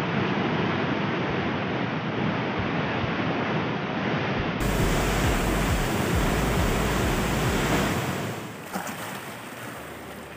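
Water released through the dam's spillway gates, rushing and churning loudly as white water. About eight seconds in it drops to a quieter steady rush of a fast-flowing channel.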